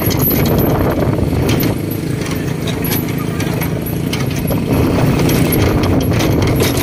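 A small truck drives along a concrete street: its engine runs steadily under a constant clatter of knocks and rattles from the loose steel cargo bed and tailgate.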